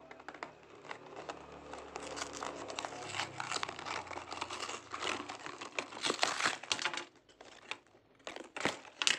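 A cardboard toy mystery box and its plastic wrapping being torn open and crinkled by hand: a dense run of crackles and tearing that thins out about seven seconds in, with a few sharp crinkles near the end.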